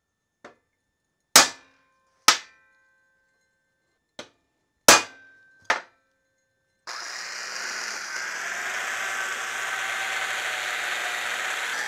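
A ball-peen hammer strikes steel six times over the first six seconds, each hit sharp and ringing briefly. About seven seconds in, a corded electric drill starts and runs steadily, drilling into a steel plate.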